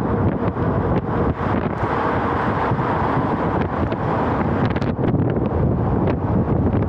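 Wind buffeting a microphone that is moving along a road at traffic speed in open air: a loud, steady rumbling rush with gusty flutter, a little brighter in the middle.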